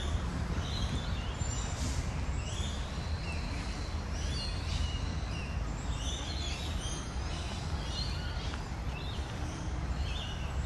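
Birds chirping, many short overlapping calls, over a steady low rumble.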